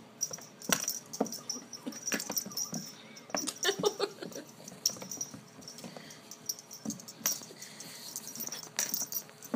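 A kitten play-fighting with a hand on a hardwood floor: irregular scuffles, taps and scrabbling of paws and claws, with the small bell on its collar jingling in short bursts.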